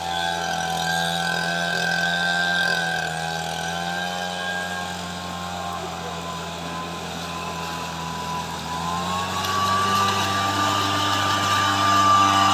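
Engine-driven backpack leaf blower running steadily, blowing air through its long tube. About nine seconds in, the engine revs up to a higher pitch and gets louder.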